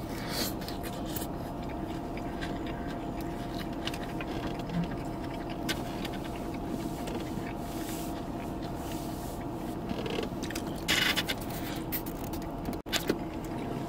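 Steady hum inside a car cabin with a faint steady tone, broken by a few short scrapes and rustles, with a quick run of them about eleven seconds in.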